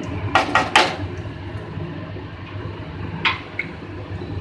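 Mustard seeds and a dried red chilli frying in hot oil in a kadhai, with a low steady sizzle and sharp pops as the seeds crackle: three quick pops about half a second in and one more a little past three seconds.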